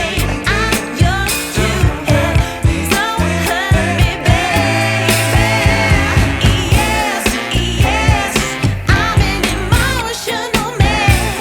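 Background pop song with a sung vocal over a steady drum beat.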